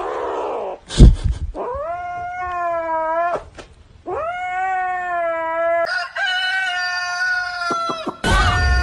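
Grey kitten yowling in long, drawn-out calls, two of about two seconds each that rise at the start and then hold their pitch, while guarding the plush toy it clutches. About a second in there is a sharp, loud knock.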